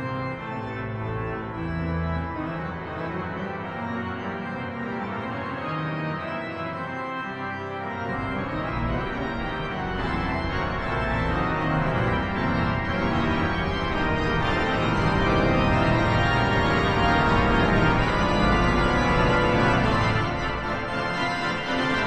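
Schantz pipe organ playing an improvisation in full, sustained chords. Deep pedal notes join about eight seconds in, and the sound builds louder through the second half.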